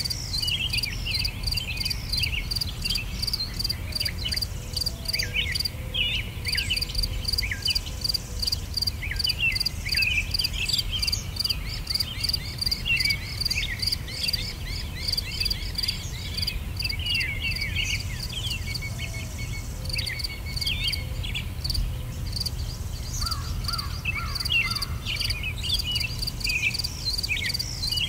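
Crickets chirping in a steady, regular pulse, with many short bird chirps and calls over it and a low rumble underneath.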